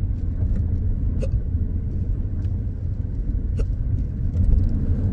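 Two short, sharp hiccups about two and a half seconds apart, the steady rhythm of intractable hiccups, over a constant low rumble.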